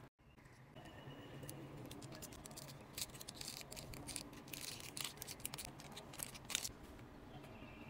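Clear plastic tape film crinkling and crackling as it is handled and bent into shape, with a few sharper snaps in the second half.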